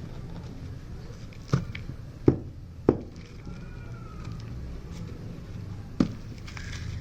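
Dried, hardened blocks of gritty sand-cement texture cracking and snapping as they are crumbled by hand: four sharp cracks, three close together in the first half and one near the end, over a steady low rumble.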